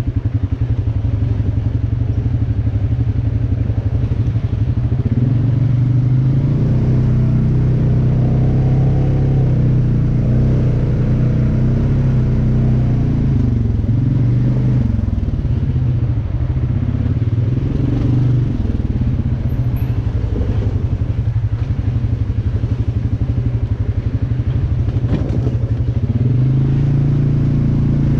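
Off-road vehicle engine running on a rough trail, its pitch rising and falling with the throttle, with a few knocks and clatter over the ground.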